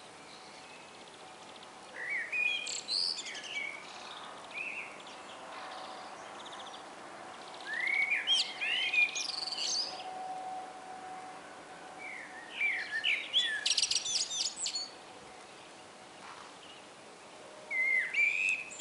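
Common blackbird singing: four separate phrases a few seconds apart, each opening with low fluty warbled notes and ending in high, squeaky twittering.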